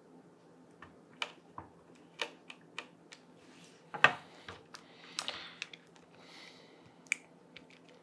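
Irregular light clicks and taps, with a few soft rustles, from a utility knife and thermal pad strips being handled while the pads are cut to size; the sharpest knock comes about four seconds in.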